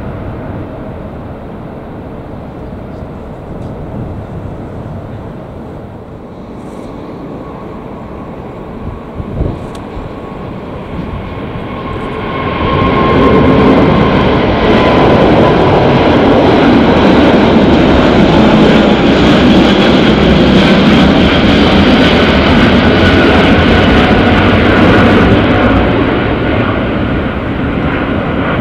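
Four Engine Alliance GP7200 turbofans of an Airbus A380-861 at takeoff climb thrust, passing close overhead. A fainter jet roar swells into a loud steady roar about twelve seconds in and eases slightly near the end.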